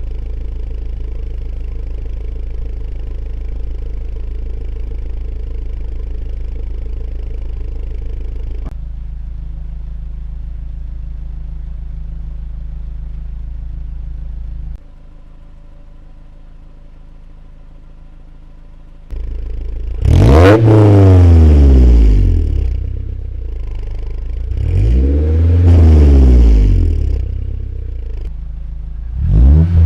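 Honda S2000 idling through its exhaust, the steady drone shifting level abruptly a few times, then blipped three times, each rev climbing and falling back to idle.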